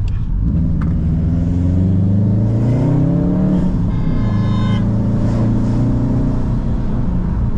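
Modified car's engine pulling hard through a gear, its pitch rising for about three seconds, then dropping at the gear change with a brief high whine, and settling into a steady drone.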